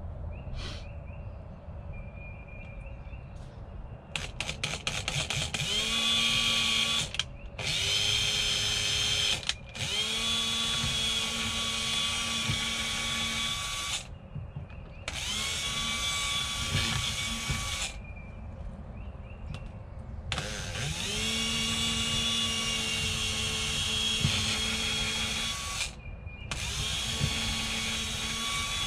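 Cordless drill boring screw holes into a boat's rail. It starts with a quick stutter of clicks about four seconds in, then runs in about six bursts of a few seconds each with short pauses between. Each burst rises quickly to a steady whine.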